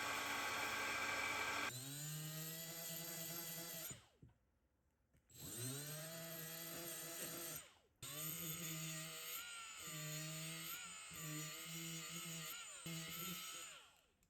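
A loud, steady hiss for the first couple of seconds, then an electric drill motor run in bursts: it spins up, stops about four seconds in, runs again, pauses briefly around eight seconds, then runs on with its pitch wavering under load until it cuts off near the end.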